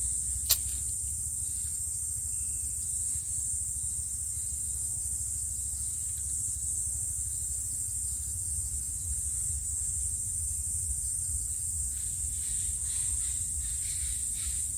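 A spanner tightening the connecting-rod bearing cap bolts of a 10 HP Lister engine, with one sharp metallic click about half a second in. A steady high-pitched hiss and a low hum run underneath.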